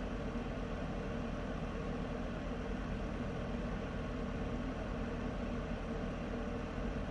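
Space heater running: a steady, even rushing noise with a faint constant hum underneath.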